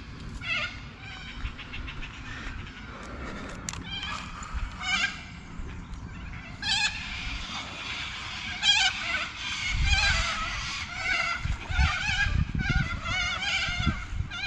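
Repeated wavering, bleat-like animal calls, sparse at first and coming thick and overlapping in the second half, with low thumps and rumble underneath near the end.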